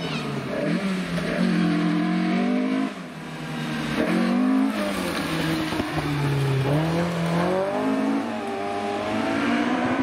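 Rally car engine revving hard as the car comes through a bend and past, its pitch climbing and falling back several times as the driver lifts and changes gear, with a brief drop about three seconds in.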